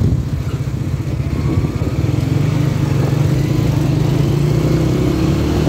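A motor vehicle's engine running with a steady low hum, growing a little louder about two seconds in.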